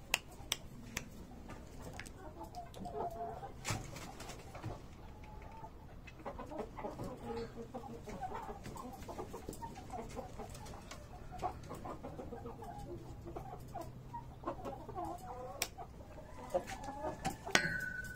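A pen full of chickens, mostly black Shamo game birds, clucking among themselves in many short, overlapping calls, with a few sharp clicks. Near the end one louder, high call falls in pitch and then holds.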